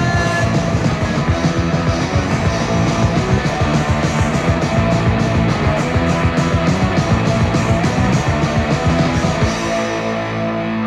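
Punk rock record: a full band with distorted electric guitar and a steady, driving drum beat, heard as an off-air radio broadcast taped to cassette. Near the end the drums stop and held, echoing guitar chords ring on alone.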